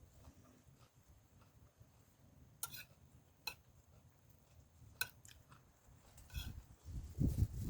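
A spoon clinking against a dish a few times with short ringing clicks, then close-up chewing and eating noises near the end.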